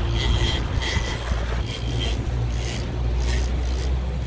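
Fishing boat's engine running with a steady low rumble, with a few short, faint high-pitched whines in the first two seconds.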